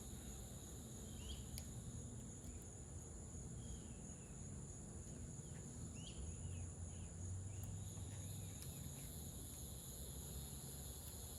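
Steady high-pitched insect chorus, crickets or similar, with a few short chirps and one or two faint light clicks over a low background hum.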